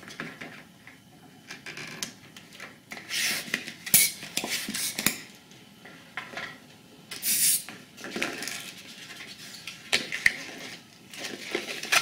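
A hand balloon pump inflating a long latex modelling balloon: two strokes of hissing air, about three and seven seconds in, with rubbing and squeaking of latex and a few sharp clicks as the balloon is handled.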